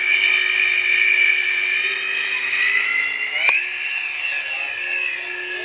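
Electric motor and propeller of a Fun Cub radio-controlled model plane whining at high throttle as it flies past and climbs away. About two-thirds through there is a sharp click and the pitch jumps up, then slowly falls.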